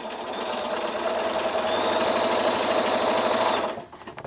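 Bernina sewing machine stitching a seam through two layers of fabric squares laid right sides together. The stitching picks up speed over the first second or so, runs steadily at a fast, even rate, then stops near the end.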